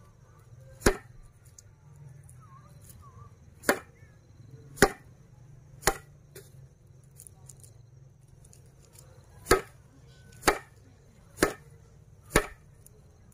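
A bundle of dried broom grass swung and struck down hard, eight sharp slaps: one about a second in, a run of three about a second apart, a pause, then a run of four about a second apart.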